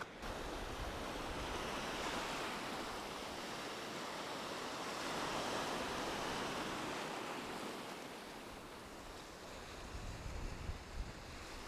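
Small sea waves breaking and washing over a shallow stony shore: a steady surf that swells twice and eases off past the middle.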